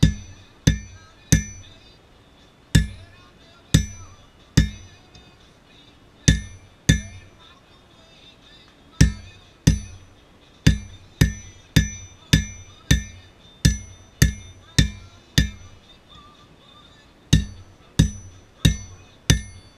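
Hammer blows on an anvil while hand-forging, each strike ringing briefly. About two dozen blows come in runs of quick strikes, roughly two a second, with short pauses between the runs.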